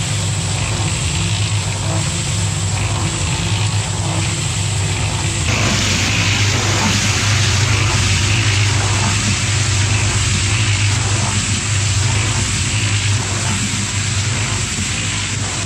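Small drum concrete mixer running: a steady motor hum with wet concrete and gravel tumbling in the turning drum. The tumbling grows louder about five seconds in.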